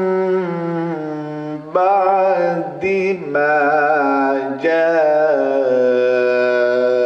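A man reciting the Quran aloud in melodic tajweed style, drawing out long held vowels in a few phrases with short breaks between them.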